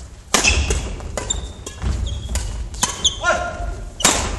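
Badminton doubles rally: several sharp racket strikes on a shuttlecock, with sneakers squeaking and feet thudding on a wooden court floor, echoing in the hall.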